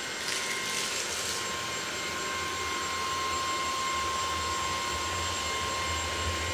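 Shark DuoClean cordless stick vacuum running while it rides on a moving robot vacuum: a steady motor whine with a fixed high tone and a low hum. A brief rush of extra hiss comes about half a second in.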